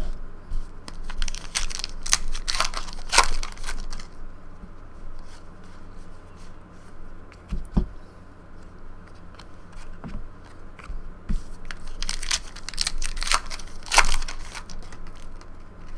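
Trading-card pack wrappers being torn open and crinkled by hand, in two spells about a second in and again near the end, with softer rustling of cards being handled between.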